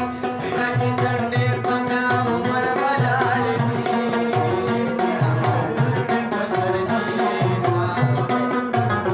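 Rubab being plucked in a quick melody, with low hand-drum strokes keeping a rhythm underneath.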